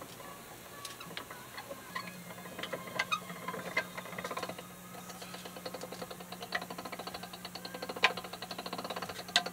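Hand-cranked LEM vertical sausage stuffer being worked, its gearing giving rapid, even clicking with a few louder knocks as the piston starts pushing meat into the tube. A low steady hum runs underneath from about two seconds in.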